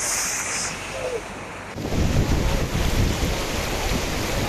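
Flowing floodwater with wind buffeting the microphone. About two seconds in, the sound cuts abruptly to a louder, rumbling wind noise that lasts to the end.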